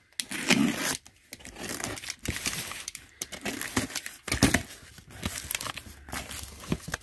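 Box cutter slitting the packing tape along a cardboard box, then the taped flaps torn apart and folded open, with tape tearing and cardboard scraping and crinkling in short bursts.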